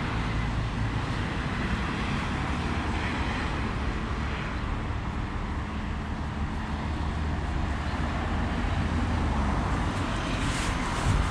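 Road traffic: a motor vehicle's engine running steadily close by, over general traffic noise, with a few short knocks near the end.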